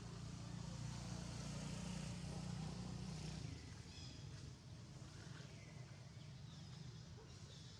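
A motor vehicle's engine humming steadily, louder for the first three and a half seconds and then fading down.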